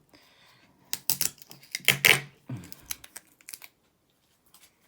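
Unboxing handling noise: plastic wrapping and packaging crinkling and rustling, with a run of sharp clicks and knocks. It is loudest about two seconds in.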